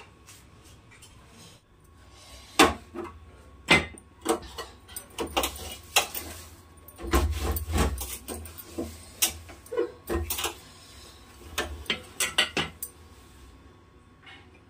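Metal cookware and gas-stove parts being handled and scrubbed clean: irregular clinks, knocks and scrapes, several a second, with a heavier low thud about seven seconds in.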